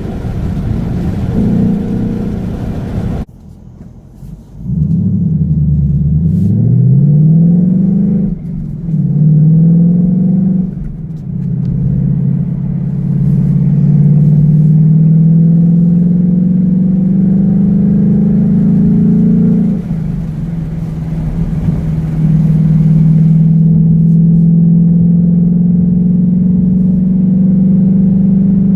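Exhaust of a 2018 Ford Mustang GT's 5.0-litre V8 pulling under load in several separate runs, each climbing slowly in pitch, with abrupt breaks between them. Around five to eight seconds in, the pitch drops and then climbs back up.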